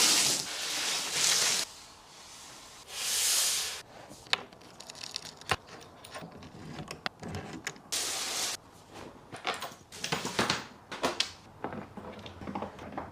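Bursts of rustling hiss, then many scattered clicks and crackles.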